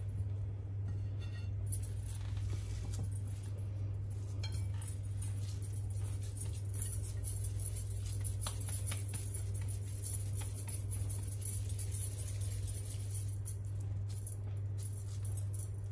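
Metal bangles jingling on the wrists as hands pat and roll kebab mixture into patties, with a few light clinks, over a steady low hum.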